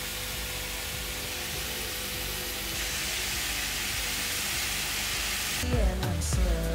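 Chopped vegetables sizzling in a frying pan: a steady hiss that gets a little louder about three seconds in. Background music comes back in near the end.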